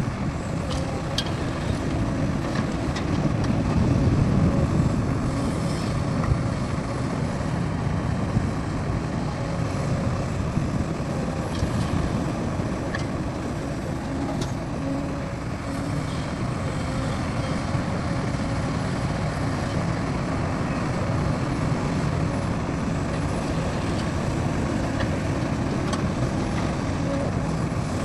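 Heavy diesel machinery, dump trucks and excavators, running with a steady low rumble, with a few faint short knocks.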